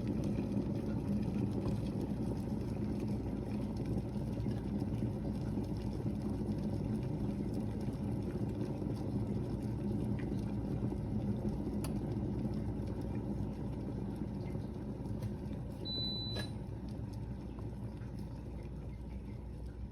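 Electric kettle heating water: a steady low rumble, with a short high beep about 16 seconds in.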